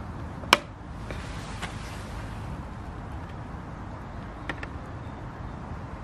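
Outdoor background rumble with no vacuum motor running, broken by one sharp click about half a second in and a few faint ticks later.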